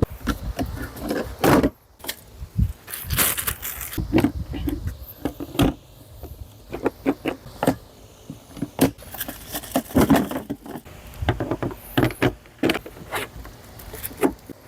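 Irregular knocks, clicks and rattles of a folding portable workbench being handled: its metal frame and parts clattering as it is moved and opened out.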